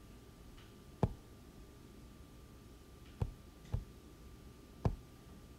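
Four short, soft clicks spaced a second or so apart, two of them close together near the middle, over a faint steady hum.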